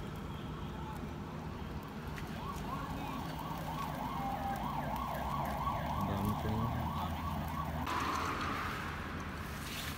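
An emergency-vehicle siren warbling rapidly up and down, about two to three sweeps a second, over a steady low hum. The siren cuts off about eight seconds in, giving way to a rushing hiss for about two seconds.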